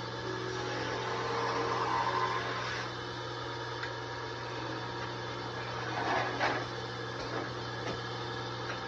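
Wood lathe motor running with a steady hum while a hand tool cuts into a spinning oak molinillo, making a scraping, shaving noise for the first three seconds or so. After that the hum carries on alone, with a short, louder scrape about six seconds in as the tool touches the wood again.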